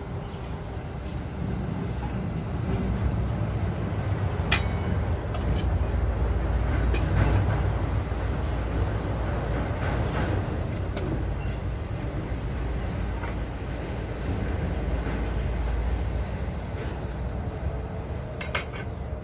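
Low rumble of heavy vehicles, swelling and fading, with a few light metallic clinks of cookware being handled.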